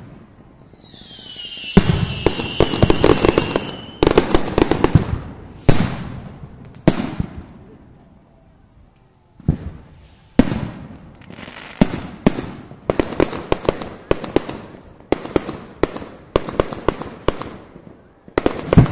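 Aerial fireworks going off: in the first few seconds a high whistle slides down in pitch, then come sharp bangs and long runs of fast crackling. After about two quieter seconds around the middle, more bangs and crackling bursts follow.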